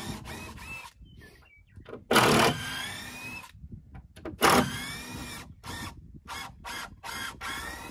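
Cordless drill-driver backing screws out of a temporary wooden support brace on a stud wall. It runs in bursts of rising motor whine, the loudest about two and four and a half seconds in, then in a run of short pulses near the end.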